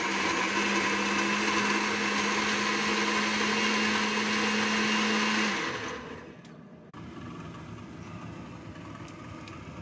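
Electric countertop blender running at full speed, pureeing soaked red dates in water, with a steady motor hum. It switches off about five and a half seconds in and winds down.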